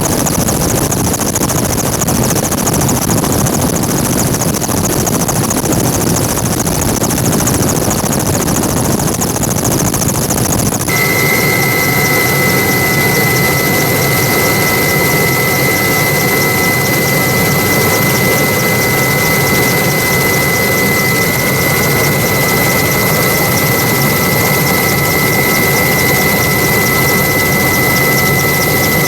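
Loud, steady turbine engine noise. About eleven seconds in, the sound changes abruptly and a steady high whine comes in on top of the engine noise.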